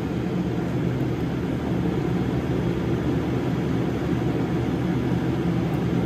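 A steady, low mechanical drone that keeps an even level throughout.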